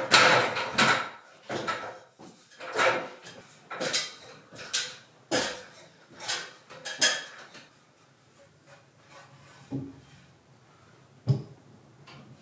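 Wood being worked by hand: a series of short scraping strokes, roughly one a second, then a pause broken by two knocks near the end.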